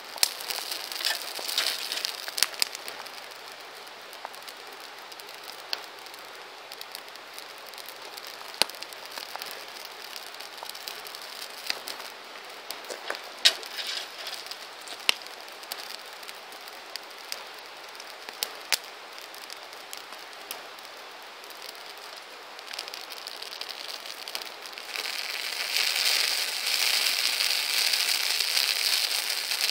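Wood campfire burning: a steady hiss of flames with scattered sharp pops and crackles from the burning wood. In the last few seconds the hiss grows louder and denser.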